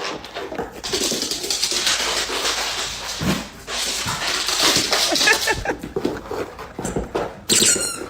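A dog's vocal sounds over dense rustling and scuffling noise.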